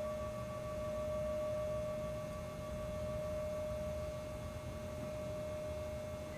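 A struck singing bowl rings on, holding one steady tone with a fainter higher overtone and fading only slowly.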